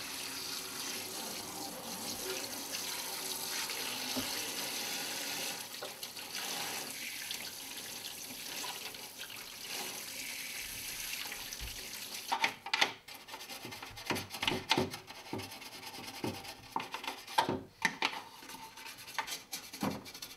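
Kitchen tap running into a stainless sink over a hard plastic toy castle being washed. About twelve seconds in, the steady water sound gives way to a soft toothbrush scrubbing the wet plastic in quick, irregular strokes.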